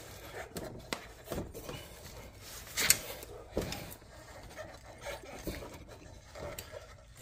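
Rubber bump stop rubbing and scraping against its steel frame cup as it is twisted and forced by hand, with scattered light knocks and one sharper click about three seconds in.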